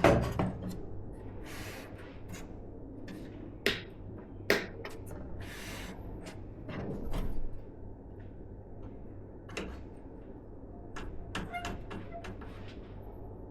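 Hands handling and fitting PC hardware: a sharp knock at the start, then scattered clicks and taps with a few short rustling, sliding noises.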